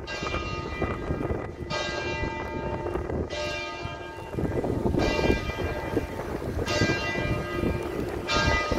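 A church bell tolling slowly and evenly, six strokes about every second and a half, each ringing on over a low background rumble.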